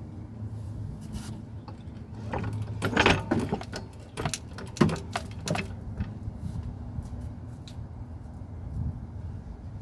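Metal clattering and knocking from a transmission jack being worked to raise it, in an irregular cluster loudest about three and five seconds in, over a steady low hum.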